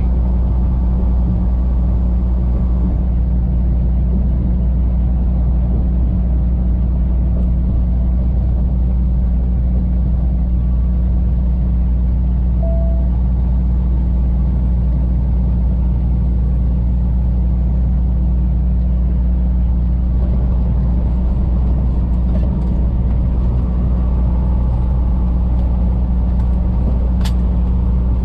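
Semi truck's diesel engine and road noise heard from inside the cab at steady highway speed: a constant low drone that holds level throughout. A short beep sounds about halfway through.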